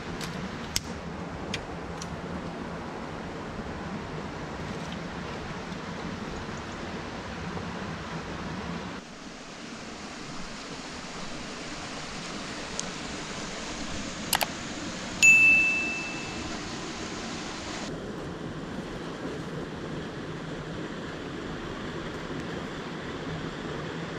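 Steady rushing of a rocky mountain stream, with a few sharp clicks in the first two seconds and a single bright ringing ding about fifteen seconds in that fades over about a second.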